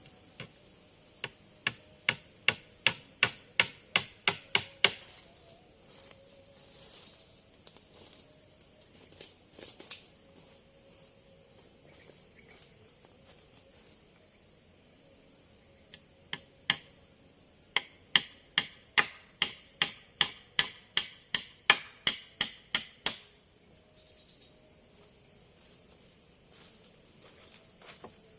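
Steady high-pitched drone of forest insects. It is broken twice by a run of sharp knocks at about three a second that speed up and then stop abruptly: about a dozen in the first few seconds, and about fifteen more past the middle.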